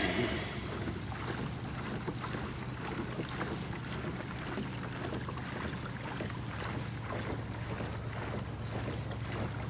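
Boat motor running at a steady pitch as the boat moves along, with water and wind noise over it. A short bump sounds right at the start.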